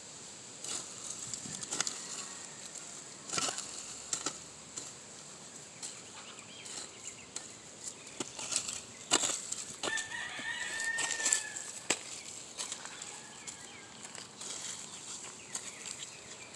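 A steel Truper garden hoe scraping and chopping into loose soil, pulling dirt up around corn plants in irregular strokes. About ten seconds in, a drawn-out bird call lasting about two seconds is heard, like a rooster's crow.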